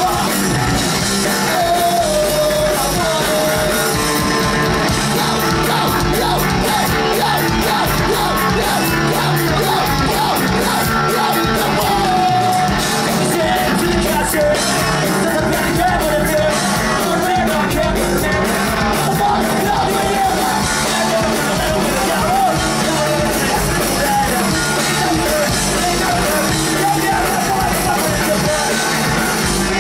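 Live rock band playing at full volume: electric guitars, bass and drums, with shouted singing over the top.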